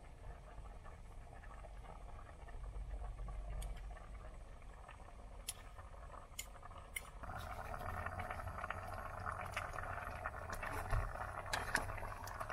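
Pot of bean soup simmering on a gas stove, with a few light clinks of a spoon against the pot as dumpling dough is dropped in. The simmering gets louder about seven seconds in.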